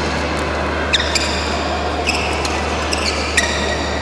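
Badminton rally: a few sharp racket hits on the shuttlecock and rubber-soled shoes squeaking on the court mat, over the steady hum of a large hall.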